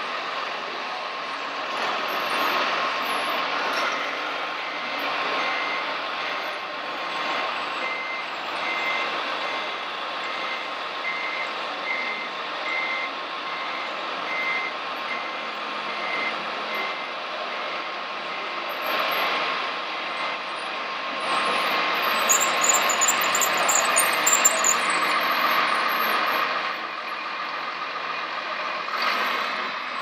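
Reversing beeper of a radio-controlled model construction truck, a short high beep repeating a little more than once a second for about a quarter of a minute before it stops. Under it runs a steady engine-like drone. A louder stretch with high ticking comes about three-quarters of the way through.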